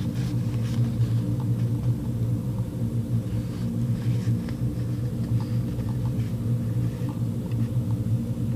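A steady low hum runs throughout, with faint light crinkles and ticks of plastic sticker sheets being handled.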